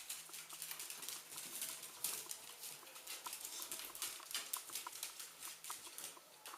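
Faint, irregular pattering and light clicks, typical of dogs' paws and claws moving about on a hard floor as they play.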